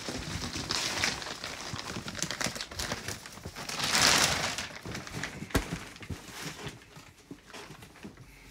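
Clear plastic wrapping crinkling and rustling as it is cut and pulled off a mattress. The rustling swells louder about four seconds in, with a sharp click a little after, then grows quieter.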